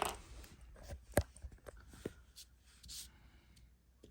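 Faint scratchy drawing strokes with a few small sharp clicks, the loudest click about a second in.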